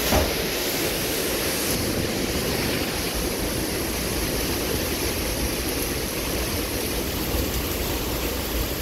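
Derecho storm winds blowing hard and steadily with heavy rain, an even rushing noise with a deep rumble of wind on the microphone.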